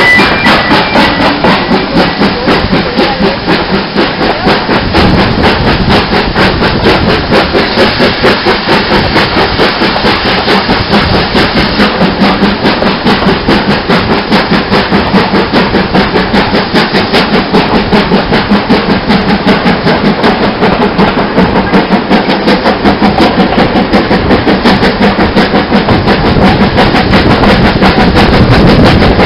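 Steam locomotive hauling a passenger train at speed, heard from an open carriage window: a fast, even rhythm of exhaust beats over the running noise of the coaches on the rails, with a steady hiss of rushing air.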